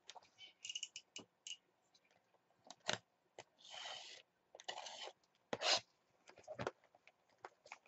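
Utility knife slitting and scraping the plastic shrink-wrap on a cardboard trading-card box: a few short scratchy strokes among light clicks and knocks from handling the box.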